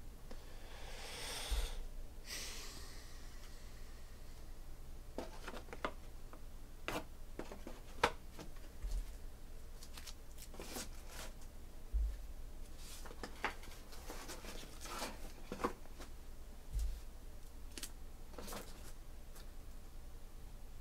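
Faint handling noise: a brief rustle, then scattered soft clicks and taps, over a low steady hum.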